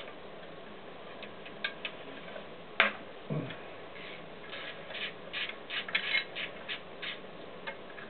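Metal engine parts and hand tools being handled: scattered light metallic clicks and taps, a sharper knock about three seconds in, and a quicker irregular run of clicks in the second half.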